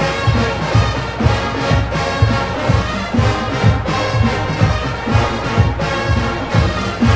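A college marching band playing a pop arrangement live: the brass section carries the tune over the drumline's steady, driving bass-drum beat.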